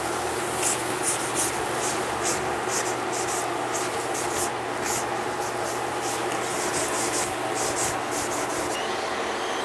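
An abrasive hand pad rubbing in quick, irregular strokes along the edges of spray-painted trim, wearing through the yellow topcoat so the black undercoat shows. The strokes stop a little before the end.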